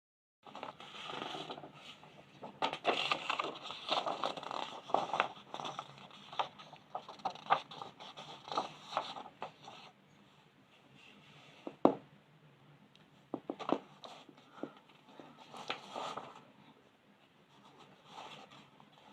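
Colouring tool scratching across paper in quick, dense strokes, then a handful of sharp clicks and taps in the second half.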